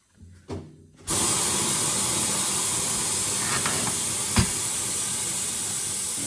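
A couple of faint knocks, then about a second in a loud, steady hiss of compressed air starts suddenly and keeps going, with one sharp knock partway through.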